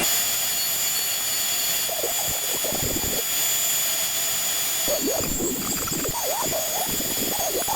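Wood CNC router's spindle running with a steady high whine as the bit cuts wood. The cutting noise rises and falls, heavier about two seconds in and again from about five seconds on.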